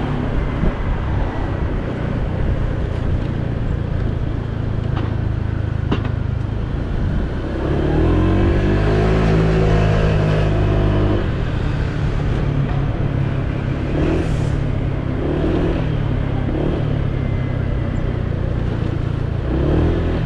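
Honda PCX 125 scooter's single-cylinder engine running under way, with steady wind and road noise. About eight seconds in a louder engine drone rises and then falls in pitch for about three seconds as the scooter draws alongside a double-decker bus.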